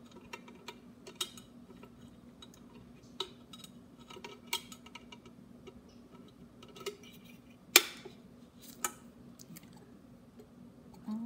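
Scattered small clicks and clinks from a stainless steel electric kettle, its lid and limescale filter being handled. One sharp click about eight seconds in is the loudest. A faint steady hum runs underneath.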